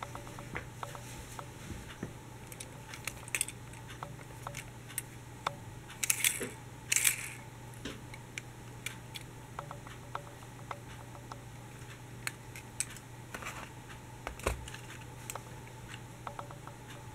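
Small clicks, taps and rubbing of a die-cast toy tram and a toy coach bus being handled and turned over in the hands, with two louder brief scraping rustles about six and seven seconds in. A steady low hum runs underneath.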